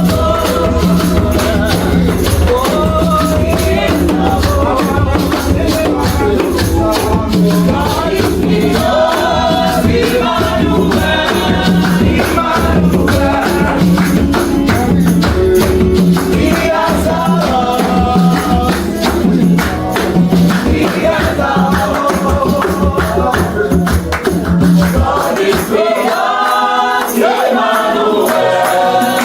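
Gospel worship music: a choir singing over a band with a steady beat. The bass drops out near the end.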